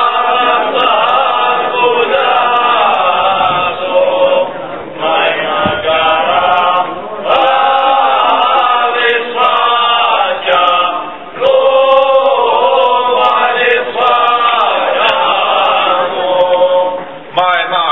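A group of men singing a Cretan rizitiko song unaccompanied, in long drawn-out phrases with short breaks between them.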